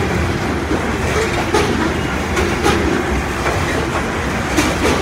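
Loaded coal hopper cars of a freight train rolling past: a steady rumble and rattle of steel wheels on rail, with a few sharp clicks as wheels cross the rail joints.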